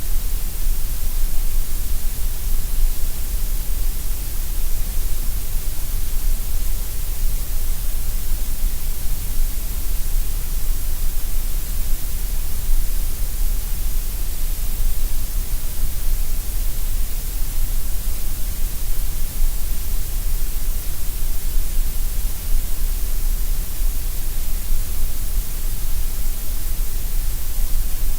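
Synthesized gray noise: a steady, unbroken hiss, strongest in the deep lows and the highest highs with a dip in the middle, the shape of an inverted loudness curve meant to sound equally loud at all pitches.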